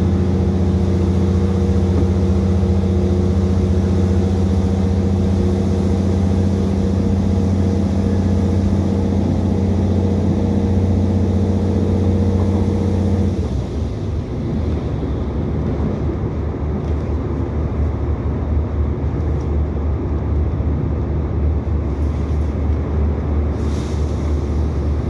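Cabin noise inside an Irish Rail 2800 class diesel railcar on the move: the underfloor diesel engine's steady drone drops away suddenly about halfway through, leaving a lower rumble of wheels on the rails as power is eased off on the final approach to the station.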